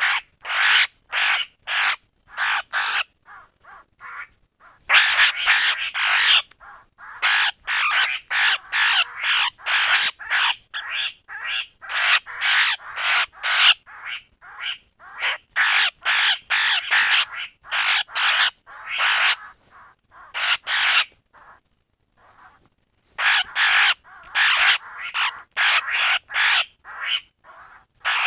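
Laughingthrush (khướu) giving harsh 'kíu' calls in fast runs of many short notes, broken by brief pauses. It is a lure recording meant to be played through a bird-trapping speaker.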